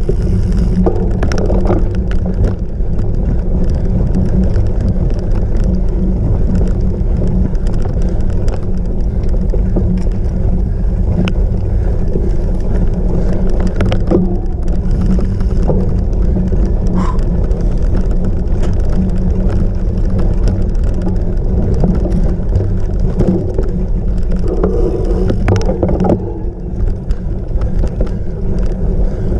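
Cyclocross bike ridden over rough ground during a race: a loud, steady rumble of wind and tyre noise on the microphone, with scattered clicks and rattles from the bike.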